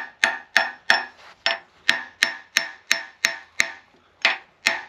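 Ball-pein hammer tapping on cast-iron machine parts in a steady run of about three blows a second, each with a short metallic ring, with a brief pause near the end. The hammering works at freeing a retaining collar and stuck bevel gear from the drill's bed.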